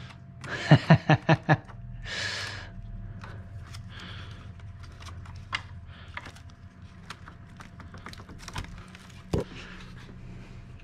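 Hand-tool and handling sounds from unbolting and lifting out a car battery. About a second in there is a quick run of about six sharp clicks, then a short scraping rush, then scattered light clicks and taps, with one dull knock near the end.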